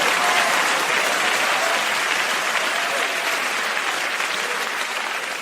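Congregation applauding, the clapping slowly dying away toward the end.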